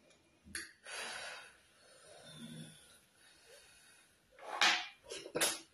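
Close-miked breathing and mouth sounds of someone eating pounded yam with ogbono soup by hand: a long breathy intake of air about a second in, a short soft low hum midway, and two sharp, loud breathy bursts near the end.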